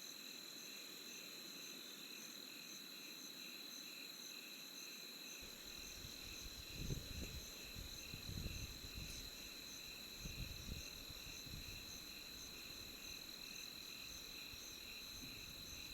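Insects calling in a steady chorus, one high continuous tone with pulsing trills above and below it. From about six seconds in, a few seconds of low irregular rumbling bumps sound under it.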